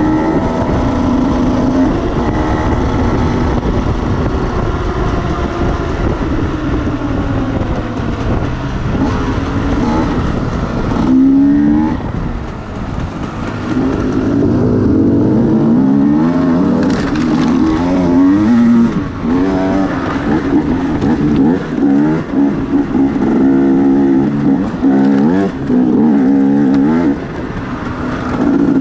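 Enduro motorcycle engine running hard under acceleration, its pitch climbing and dropping again and again, with a brief easing off a little before halfway.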